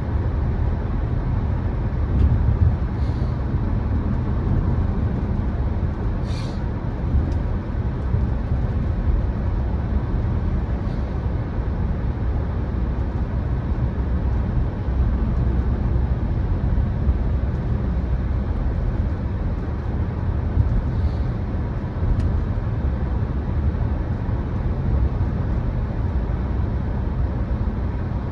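Cabin noise of a car driving at steady speed: a constant low rumble of road and engine noise. A few faint, brief clicks sound over it.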